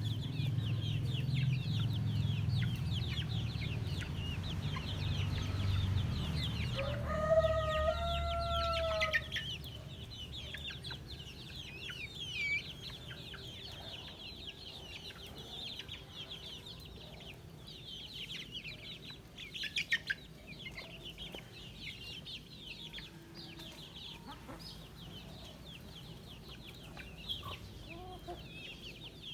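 Poultry flock: a dense, continuous high peeping of chicks, with a rooster crowing once about seven seconds in. A low rumble underneath fades out about nine seconds in.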